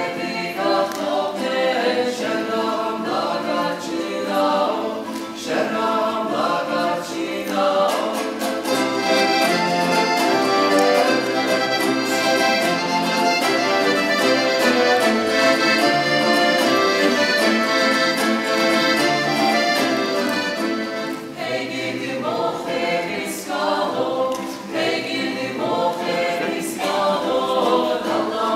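Mixed choir singing a polyphonic folk song with accordion accompaniment, its parts moving in short phrases at first and then holding fuller chords through the middle.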